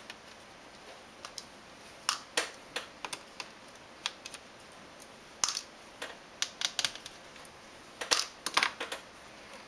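Irregular light clicks and taps, about a dozen, as small screws and the plastic laptop screen assembly are handled on a workbench.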